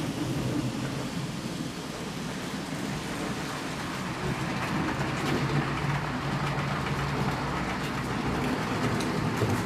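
HO scale model train running along the layout's track: a steady electric motor hum with the rolling rattle of small wheels on the rails.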